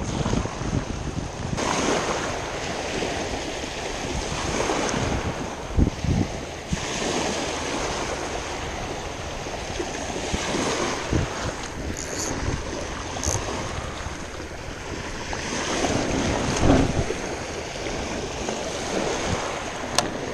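Small waves breaking and washing up a sandy shore, the surf rising and falling, with wind buffeting the microphone in low thumps.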